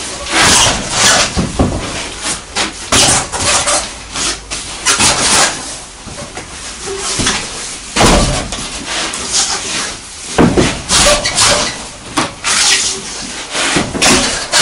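Car tyres being dropped and stacked in the bare sheet-metal cargo floor of a Peugeot Boxer van: irregular heavy thuds with rubber scuffing against rubber and metal between them.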